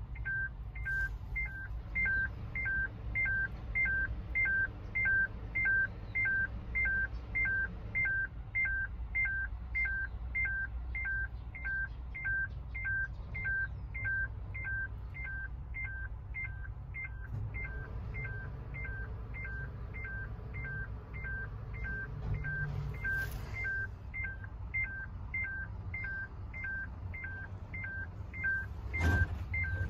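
Truck cab warning buzzer beeping over and over, short two-pitch electronic beeps about twice a second, over a low steady rumble. A single knock near the end.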